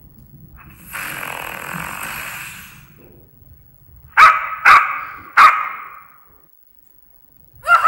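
Recorded dog sounds played by the PiDog robot dog's small on-board speaker. First comes a rough, hissing sound about two seconds long, then three short barks in quick succession. Near the end a yelp begins, falling in pitch.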